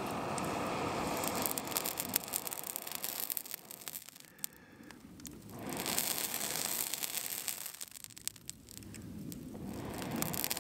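Smouldering campfire log crackling, with many sharp pops as a metal poker prods it. Under the pops, a rushing noise swells and fades three times.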